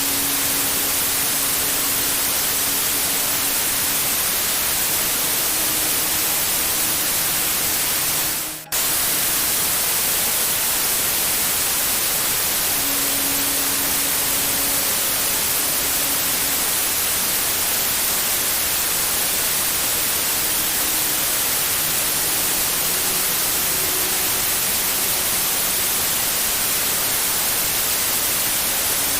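Steady white-noise hiss, brightest in the treble, used as a baby sleep sound. About eight and a half seconds in it fades down sharply for a moment and snaps straight back.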